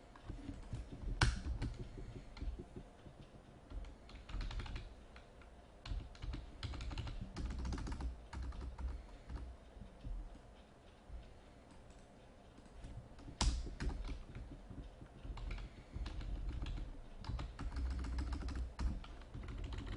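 Typing on a computer keyboard in irregular spurts, with two sharper, louder clicks, one about a second in and one about two-thirds of the way through.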